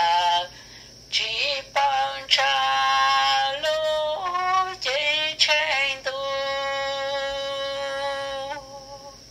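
A solo voice singing a slow melody in long held notes with short breaks between phrases; the last phrase is one note held for about two and a half seconds.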